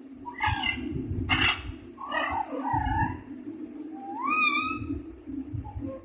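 Young parakeet babbling: a few short harsh squawks and chattering calls, then a rising whistled call about four seconds in, the kind of sound a baby parrot makes as it starts learning to talk. A steady low hum runs underneath.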